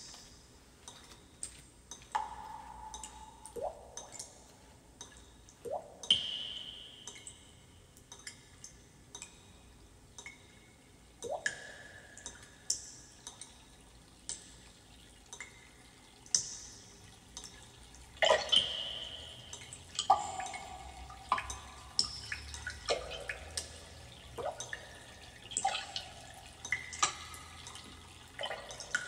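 Water drops plinking irregularly at varied pitches, each with a quick upward 'bloop' as it lands, played back through a hi-fi system's loudspeakers. The drops come more thickly in the second half.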